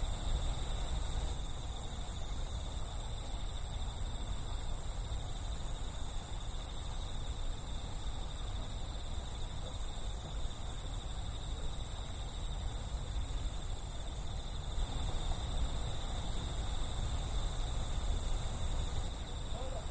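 A steady chorus of crickets chirping, over a constant low rumble.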